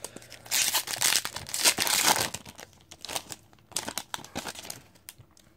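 Wrapper of an Upper Deck Artifacts hockey card pack crinkling and being torn open, loudest during the first two seconds, then lighter crinkles and taps as the cards are handled.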